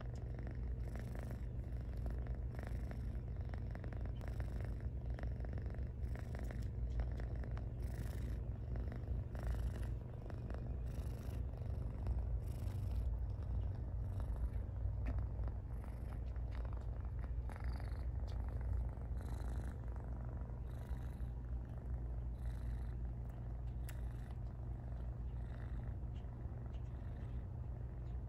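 Kitten purring steadily while it suckles, a continuous low rumble with faint clicks about once a second.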